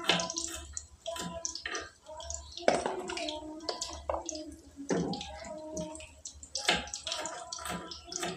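Knife cutting small pieces on a wooden board by hand: an irregular run of sharp taps and clicks, a few of them louder.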